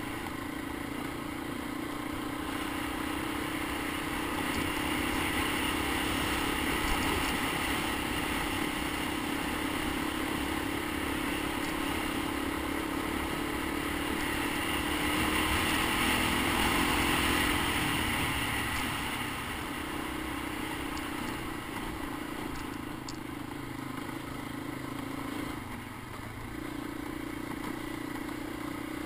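Honda ATC 250ES Big Red three-wheeler's air-cooled single-cylinder four-stroke engine running steadily as it is ridden, heard from the rider's helmet. The engine note swells twice and eases off briefly near the end.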